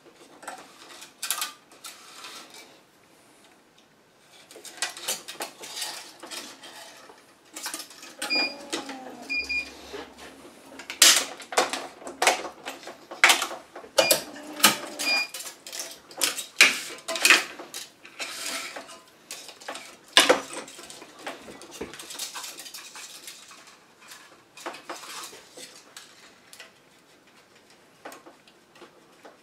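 Tennis racquet being strung on a stringing machine: irregular clicks, snaps and rasps as the Gamma Moto string is pulled through and the machine's clamps are worked. Two pairs of short electronic beeps come in the middle, from about eight to fifteen seconds in.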